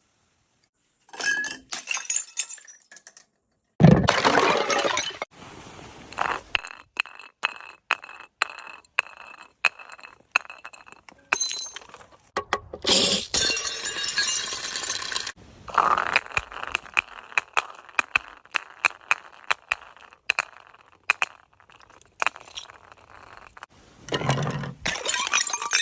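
Glass bottles smashing, several in a row, the loudest about four seconds in, with shards clinking, tinkling and ringing as they scatter between the breaks.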